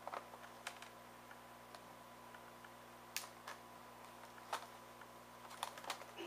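Scattered light plastic clicks and ticks as a replacement laptop keyboard is handled and pressed down into the laptop's deck. The strongest clicks come about three seconds in and about four and a half seconds in, over a faint steady hum.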